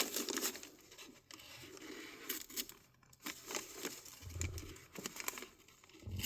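Short, irregular rustling and tearing strokes of a fixed-blade knife being tried on a material to test its edge.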